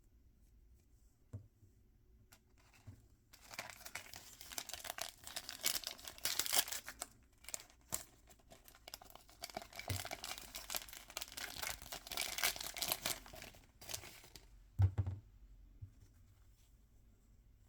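Toy packaging being torn open and crinkled by hand, a dense crackling run of about ten seconds that starts a few seconds in, followed by a short thump.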